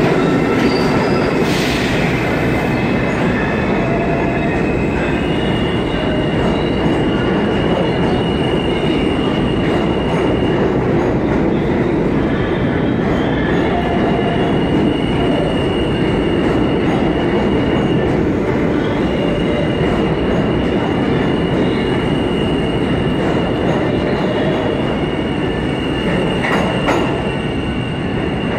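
New York City subway train moving through the station: a steady heavy rumble of wheels on rail, with a high, thin wheel squeal that comes in about five seconds in and drops out twice before returning.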